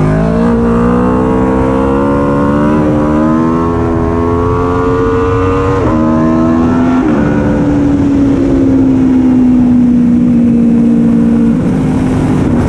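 Aprilia Tuono V4 1100 Factory's V4 engine under way. The exhaust note climbs steadily for about six seconds, then drops at a gear change around six to seven seconds in and sags slowly as the bike eases off, with another shift near the end. Road and wind noise run underneath.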